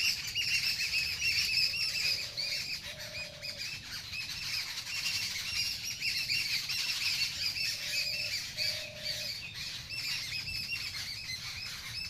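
Many small birds chirping together in a dense, continuous chorus. Twice, about six seconds apart, a lower two-part note sounds briefly beneath it.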